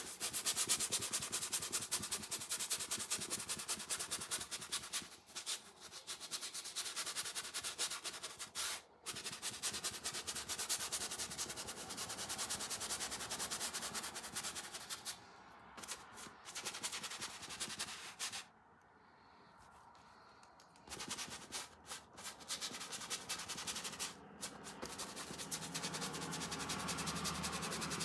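Stiff bristle paintbrush scrubbing a thin wash of paint onto a primed painting surface: a fast, scratchy rubbing of many short strokes, with a few brief pauses and a longer lull about two-thirds of the way through.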